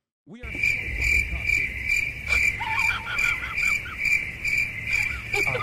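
Crickets chirping in a steady pulsing trill, about two chirps a second, starting after a brief silence.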